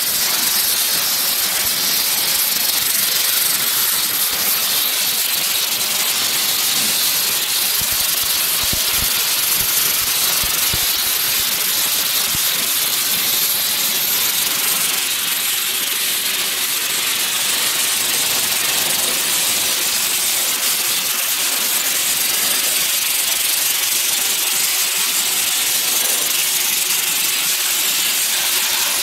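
Sandblaster blasting marble: a steady, loud, high hiss of compressed air and abrasive grit.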